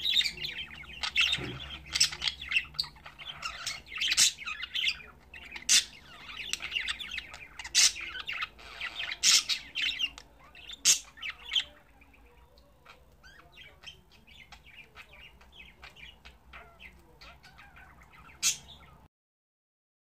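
Budgerigars chirping and squawking in quick, high calls. The calls are loud for the first twelve seconds or so, then fainter and sparser, and they cut off suddenly near the end.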